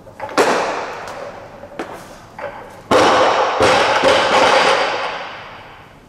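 Loaded Olympic barbell with rubber bumper plates: a clank as the bar is driven overhead in a jerk, then the bar dropped onto the lifting platform, landing with two heavy thuds about 0.7 s apart as it bounces, the steel bar and plates ringing on and fading.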